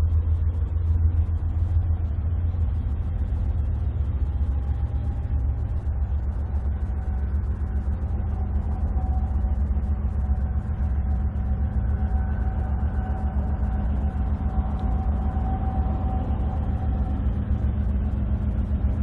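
Steady low rumble of a freight train on the move, with a faint thin ringing tone from about four seconds in until near the end.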